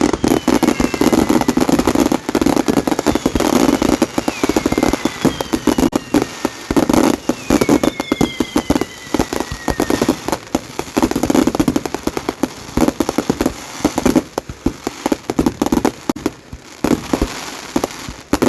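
Fireworks crackling in a rapid, dense run of pops, with several high whistles that slide down in pitch in the first half.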